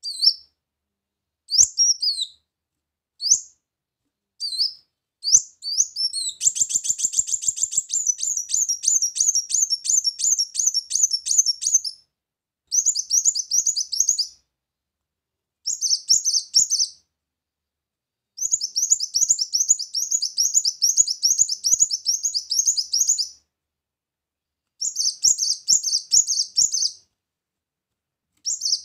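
Ruby-cheeked sunbird (kolibri muncang) singing: a few separate high, quick upward chirps, then from about six seconds in, bursts of rapid high twittering trills, each a second to five seconds long, with short pauses between.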